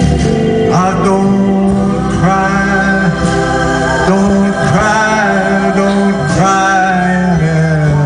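Live band music: sustained Hammond-style organ chords under a lead melody of held notes that slide up into pitch.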